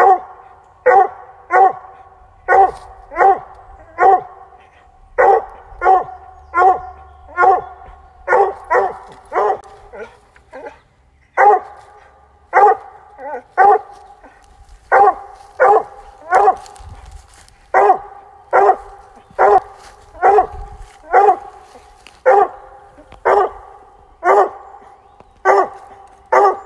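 Bluetick coonhound barking treed at a fox squirrel up the tree: short, evenly spaced barks, a little more than one a second, with a brief pause about ten seconds in.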